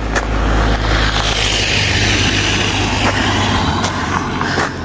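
A car passing on a wet road: tyre hiss swells and then fades as it goes by, over a low engine rumble that dies away in the second half.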